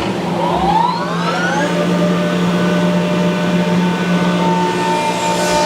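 Kaeser CSD 125 rotary screw air compressor starting up: its 125 hp electric motor spins up with a rising whine in the first two seconds, then runs steadily with a hum and several steady tones, and a click near the end.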